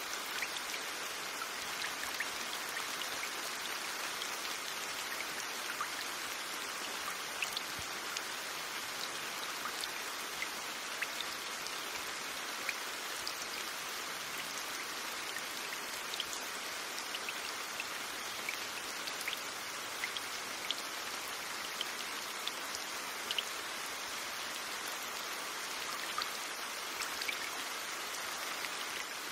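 Steady rain falling: an even hiss with scattered single drops ticking through it.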